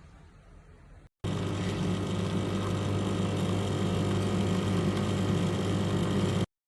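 Nespresso Essenza Mini's pump buzzing steadily while it pushes water through a capsule to brew. It starts sharply about a second in and cuts off abruptly near the end.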